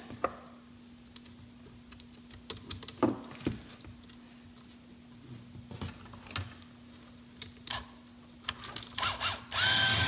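Small electric motor of a BMW E30 power antenna running on battery power, a faint steady hum as its gear draws the toothed mast cable in, with scattered clicks from the wires and parts being handled. A louder noise starts near the end.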